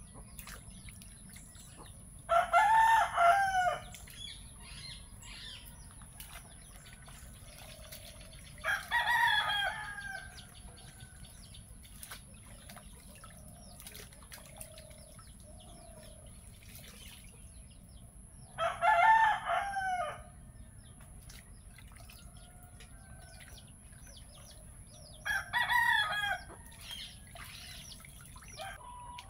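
A rooster crowing four times, each crow a little over a second long and several seconds apart. Faint clicks and splashes of water come in between.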